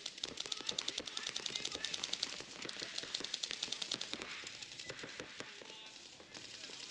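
Paintball markers firing in rapid strings of shots, a fast crackle of overlapping pops that thins out near the end.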